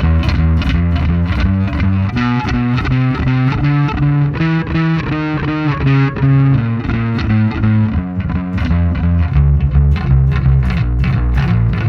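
Five-string electric bass (Warwick Vampyre SN-5) on its neck pickup, played through a Neural DSP Quad Cortex amp-modeller with a gritty, lightly distorted tone. It plays a line of plucked notes: low repeated notes at first, a quicker run of higher notes through the middle, then back down to low notes near the end.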